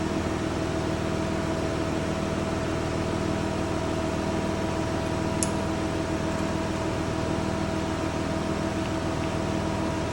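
Steady mechanical hum made of several fixed tones, with a single sharp click about five seconds in.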